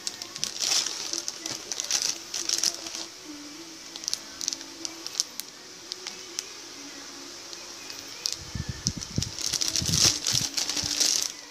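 Clear plastic bags holding model-kit parts runners crinkling and rustling as they are handled, in irregular bursts, with some heavier handling knocks near the end.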